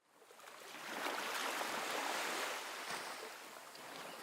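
Waves and water washing, a steady noisy rush that fades in at the start, swells and eases off slightly after about three seconds.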